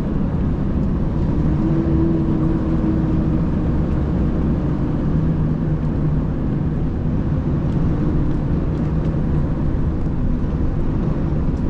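Steady low rumble and drone of a running vehicle engine in motion, with a faint held engine tone that shifts slightly in pitch partway through.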